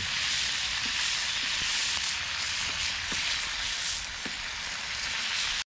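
Chicken pieces sizzling as they brown in oil in a skillet over a wood fire, a steady hiss that cuts off suddenly near the end.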